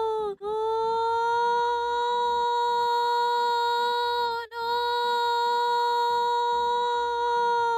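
A woman's voice holding a long, high, steady "noooo" that imitates a fire engine siren. It breaks off briefly about half a second in and again about four and a half seconds in, each time dipping in pitch and coming straight back.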